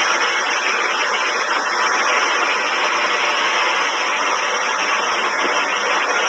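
High-voltage transmission line making a steady hiss with a faint low hum underneath: the noise of corona discharge around the energised conductors.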